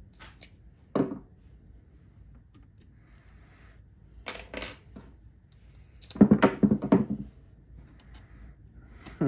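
A set of steel Allen keys clinking and jangling as one is picked out of its holder: a few separate clicks, then a louder run of rattling clinks about six seconds in.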